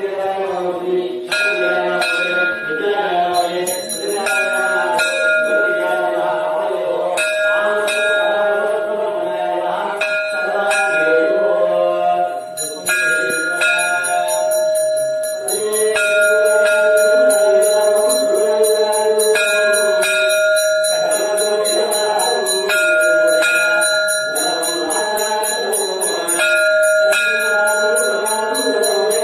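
Temple bell rung continuously for the puja, struck rapidly and evenly so that its tone rings on without a break.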